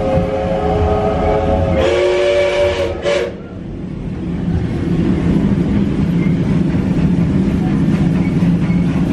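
Steam locomotive whistle blown for about three seconds, its chord shifting lower about two seconds in, then cutting off abruptly. The steady running rumble of the steam trains follows.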